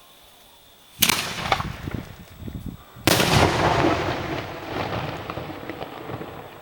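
Aerial fireworks shells bursting. A sharp bang comes about a second in, a smaller one follows shortly after, and a bigger bang comes about three seconds in. Each bang is followed by a rumbling, crackling tail that fades over a few seconds.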